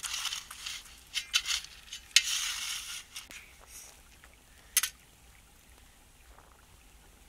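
Gritty scraping and rustling as a wooden stick pushes hot ashes and stones off a dough-sealed pot buried in a ground fire, with sharp knocks about two seconds in and again just before five seconds. After that it goes quiet.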